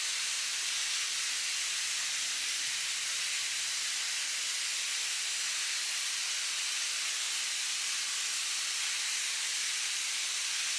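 Steady, even hiss of falling water from a small waterfall.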